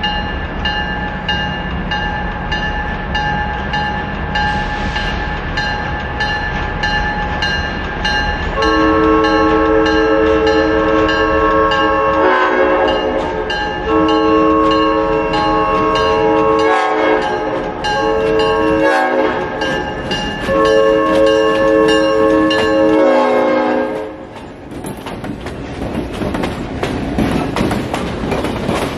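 EMD GP9 diesel locomotives approaching with a bell ringing about twice a second, then sounding a multi-chime air horn from about nine seconds in: four blasts, long, long, short, long, the grade-crossing signal. After the horn stops the locomotives and cars rumble past close by, wheels clattering on the rails.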